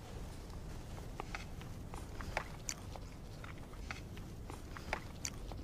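Faint, scattered clinks and clicks of people eating at a dinner table: tableware knocking against plates and bowls, with chewing, over a low room hum.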